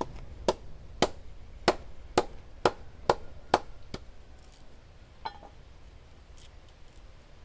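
A chopping blade hacking into a nipa palm fruit bunch: about eight sharp chops, roughly two a second, stopping about four seconds in, with one lighter knock a second later.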